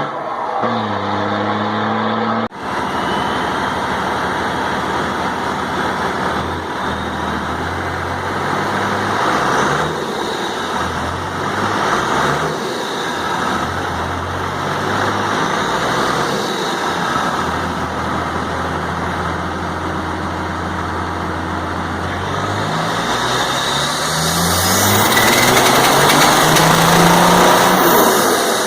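Six-cylinder MWM 4.2 turbo diesel of a Chevrolet Silverado running hard on a chassis dynamometer. It cuts out briefly about two and a half seconds in, then runs steadily. Over the last five seconds or so the revs climb steadily and it gets louder.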